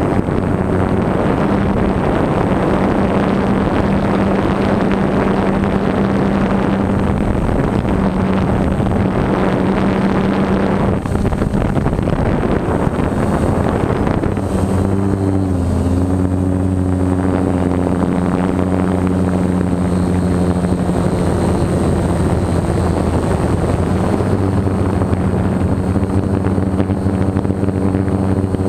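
Multirotor drone's electric motors and propellers whirring in flight, heard from a camera mounted on the drone itself: a steady layered hum that shifts in pitch about halfway through as the motors change speed, over rushing air noise that eases after the first third.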